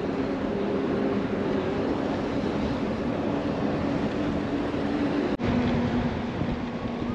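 Bus engine running with steady road noise as the bus drives along, a low drone with a few steady engine tones in it. The sound cuts out for an instant about five seconds in.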